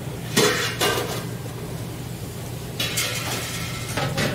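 Long cooking chopsticks stirring and lifting noodles in a large wok of boiling water: splashing and clatter against the metal, with two sharp splashes about half a second and a second in and another bout near the end, over a steady low hum.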